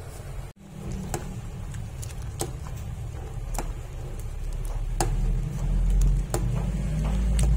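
A pot of binignit (bananas in coconut milk) simmering on the stove: a steady low rumble that grows louder near the end, with light sharp clicks about once a second. The sound drops out briefly about half a second in.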